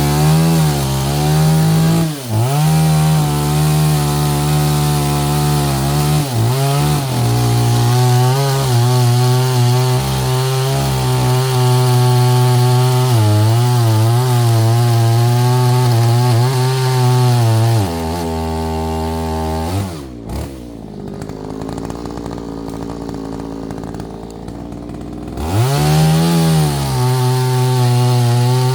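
Chainsaw running at high revs through firewood, its pitch dipping and recovering as the chain bites. About two-thirds of the way through it drops back to idle for several seconds, then revs up again near the end.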